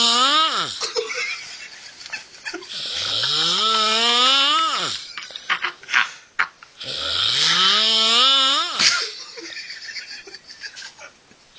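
Loud snoring: the tail of one snore, then two full snores about four seconds apart. Each rises in pitch with a hiss over about two seconds, then drops off sharply.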